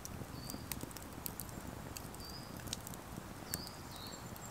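Wood campfire crackling, with frequent sharp little pops and clicks and a few short, high, steady whistling notes over a low background rumble.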